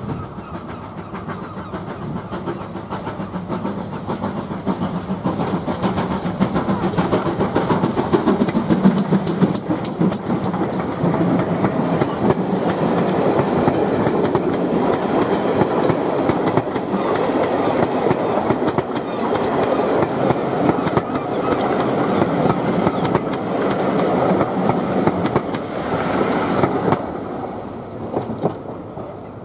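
A heritage passenger train of chocolate-and-cream coaches passing close by, wheels clicking rhythmically over the rail joints. The sound builds over the first several seconds and falls away near the end as the train goes by.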